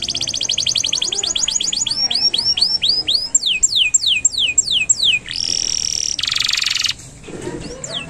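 Domestic canary singing a long song: a fast, even trill, then slower upward-curving notes and a run of quick downward-sweeping notes, then a buzzy rolled trill about five seconds in, with a short break near the end before more sweeping notes.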